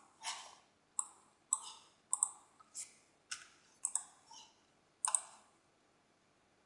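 Computer mouse and keyboard clicks, about nine separate ones roughly half a second apart, stopping a little after five seconds in.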